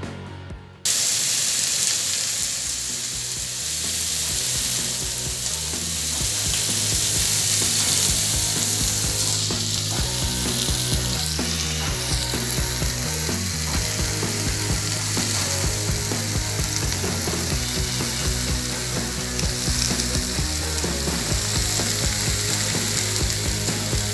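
Dense, steady crackling noise that begins abruptly about a second in, with faint low tones underneath.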